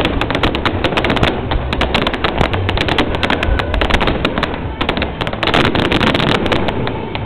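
Fireworks bursting in a fast barrage: many sharp bangs and crackles a second over a continuous rumble.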